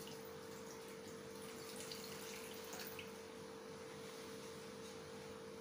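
Drinking water poured from a glass into a blender jug over ice and chopped fruit: a faint trickle and splashing, with a steady low hum underneath.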